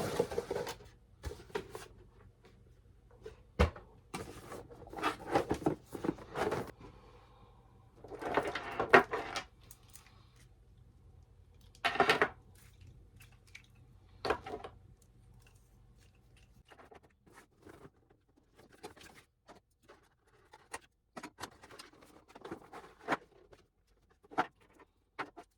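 Light-string boxes and their packaging being handled and unpacked: scattered rustles, clicks and knocks, with a few longer rustling bursts, over a faint low hum that stops about two-thirds of the way through.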